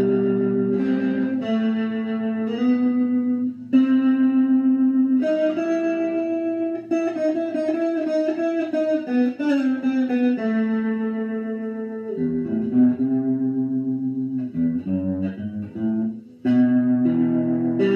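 Stratocaster-style electric guitar playing sustained chords and single-note phrases, with a quick run of bent, wavering notes in the middle.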